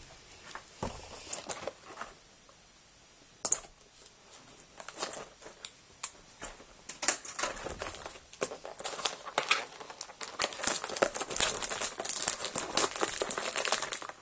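Cellophane shrink-wrap on a box of trading cards being opened with a pen and torn off. Scattered clicks and scrapes come first, with a sharp click about three and a half seconds in, then dense crinkling and tearing of the plastic for the second half.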